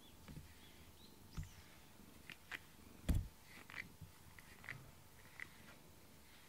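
Soft scattered rustles and taps from a cat being handled and brushed with a rubber grooming brush, with one louder thump about three seconds in.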